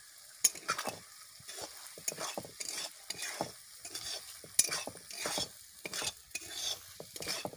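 Metal spatula stirring and scraping a thick spice paste in a metal kadai, in quick irregular strokes with a few sharp clicks, over a faint sizzle: the masala frying in oil for a chicken korma.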